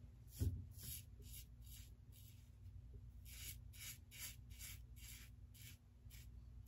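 Stainless open-comb safety razor with a Gillette Platinum blade scraping through a couple of days' stubble on a lathered neck: faint short strokes, about two to three a second, with a brief low thump just after the start.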